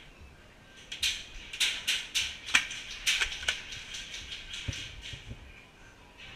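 Airsoft guns firing a string of irregular sharp pops, densest in the first few seconds and thinning out about four seconds in.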